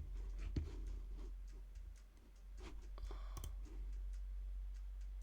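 A few scattered clicks of a computer keyboard and mouse over a low steady hum.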